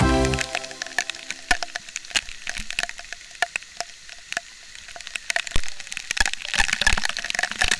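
Waterfall spray and drops pelting the camera and its microphone, heard as a rapid, irregular run of sharp cracks and crackles over a light hiss. The cracks thin out in the middle and grow denser and louder toward the end.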